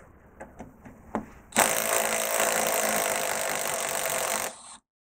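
Cordless power driver spinning a 5 mm hex bit in a Bilstein strut's threaded piston shaft, starting about a second and a half in and running steadily for about three seconds before stopping. It is driving the piston shaft into the strut to release the damper cartridge from the outer strut body. A few light clicks of handling come before it.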